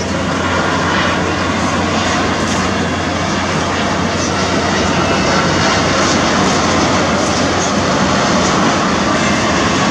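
Jet engines of a Boeing 787-9 on landing approach, heard as a steady jet noise that grows slightly louder as the airliner nears.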